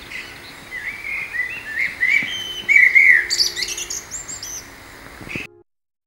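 Songbird singing: a run of clear whistled phrases, then a higher twittering burst a little after three seconds in. The sound cuts off suddenly near the end.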